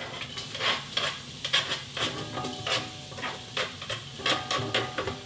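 Chopped onion scraped with a spatula into hot olive oil in the steel bowl of a Kenwood Cooking Chef Gourmet heated to 120 °C. Repeated scrapes and taps against the bowl, about two a second, over a low sizzle as the onion starts to sweat.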